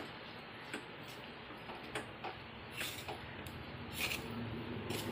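Metal spoon stirring and scraping a stiff, crumbly semolina and rice-flour dough in a metal pan, with scattered light clicks where the spoon knocks the pan.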